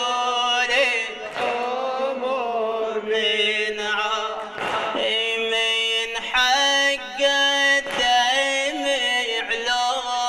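A man's solo voice singing an Arabic Shia latmiyya lament into a microphone, in long drawn-out phrases with short pauses about every three seconds.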